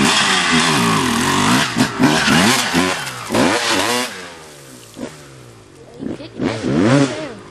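Dirt bike engines revving, rising and falling in pitch, loud for the first few seconds, then dropping back to fainter blips of throttle.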